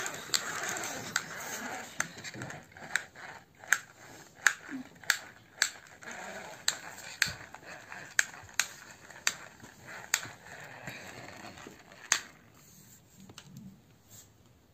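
Plastic toy tricycle pushed along the floor, clicking regularly as it rolls at about two to three clicks a second. The clicking stops about twelve seconds in.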